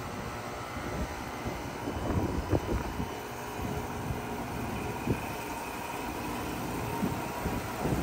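Outdoor unit of a 2017 Carrier Comfort (25HCE) 3-ton heat pump, with an LG scroll compressor, running in heat mode with a steady mechanical hum. Irregular gusts of wind buffet the microphone over it.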